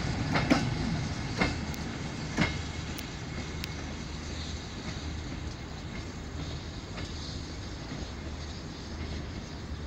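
Train wheels clacking over rail joints a few times as the last wagons roll past, then a steady low rumble fading as the train pulls away.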